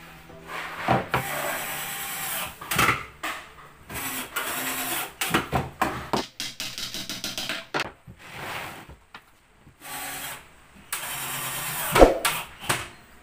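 Cordless drill-driver running in short bursts, driving screws into a plywood cabinet box, with sharp knocks on the wood in between.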